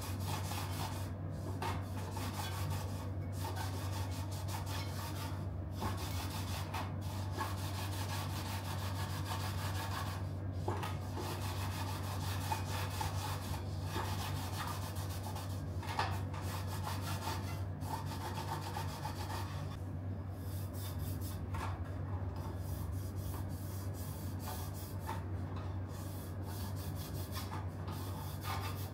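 Hand rubbing and scrubbing at a carbon tubular bicycle rim to clear off gluing-tape residue: a continuous scratchy rubbing with short pauses between strokes, over a steady low hum.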